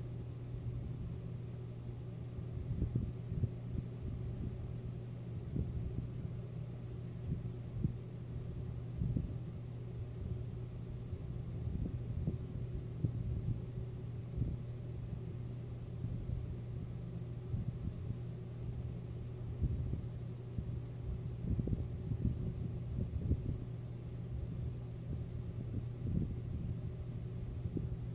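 Thunderstorm ambience: irregular low rumbles and short thumps over a steady low hum.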